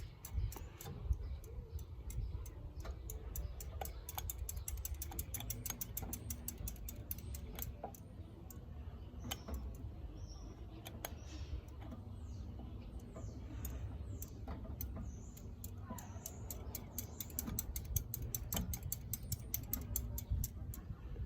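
Litex Windsong ceiling fan motor running with a faint steady hum and many light, irregular ticks and clicks while its reverse switch is pressed down. The reverse switch is faulty and is what stops the fan from working.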